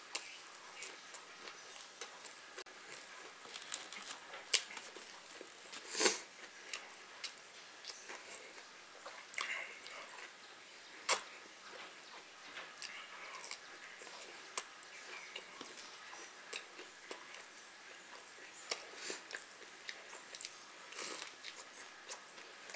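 A person chewing and biting food close to the microphone: an irregular run of wet clicks and mouth sounds, with a few louder sharp ones.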